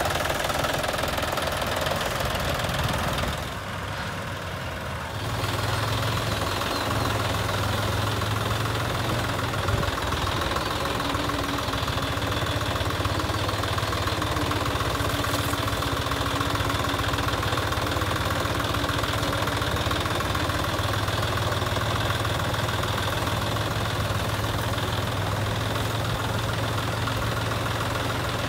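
John Deere tractor's diesel engine running steadily as the tractor drives along, a low steady drone. The sound drops in level briefly about three to five seconds in.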